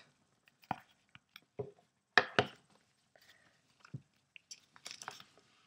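Paper manuals being handled and slid out of a cardboard box: scattered short rustles and taps, the loudest a crinkle about two seconds in.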